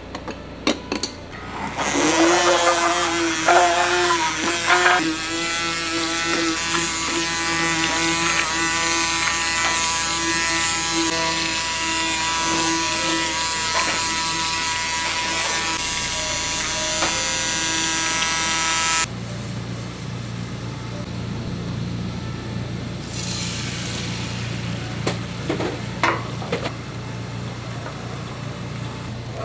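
Handheld immersion blender running in a tub of raw eggs, a steady motor whine that cuts off abruptly about two-thirds of the way through. A quieter steady low hum carries on after it, with a few faint knocks.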